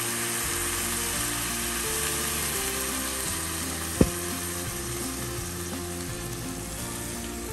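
A pot of rice sizzling and hissing steadily as hot water is added to it, easing off slightly, with one sharp knock about four seconds in. Faint background music runs underneath.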